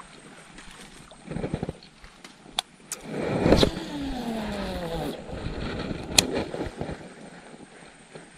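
Baitcasting reel spool spinning out as a lure is cast: a whirring whine that falls steadily in pitch for about a second and a half, then stops abruptly. Sharp clicks from the reel and a rustle of grass come before it, and another sharp click comes a second after it.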